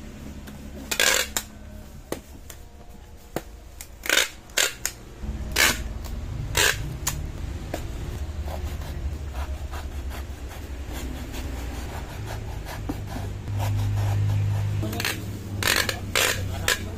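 Packing tape being pulled off a handheld tape dispenser in short, sharp rips, several in quick succession near the start and again near the end, with cardboard rubbing and scraping between them. A low steady hum runs underneath from about a third of the way in.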